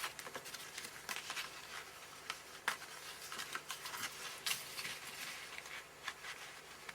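Quiet handling of cardstock pieces and a paper-fastener brad: scattered small clicks and rustles as the brad is pushed through the card boat piece and disc, with the sharpest clicks about a third and two thirds of the way in.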